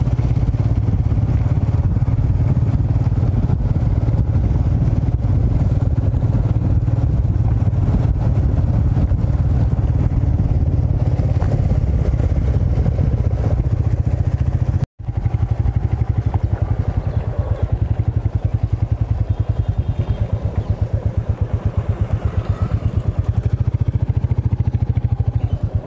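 Motorcycle engine running steadily under way, heard from the rider's seat, with a low, rapid, even pulse; the sound cuts out for an instant about fifteen seconds in.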